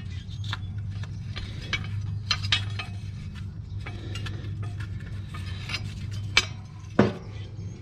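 Metal clinks and knocks as the spacers and steel cutting blade come off a mower's blade spindle, with a louder knock about seven seconds in. A steady low hum runs underneath.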